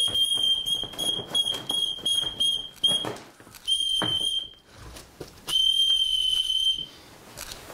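A whistle blown on one steady high pitch: a long blast that stops just after the start, a quick run of short toots over the next few seconds, then a short blast about four seconds in and a longer one of over a second near the end.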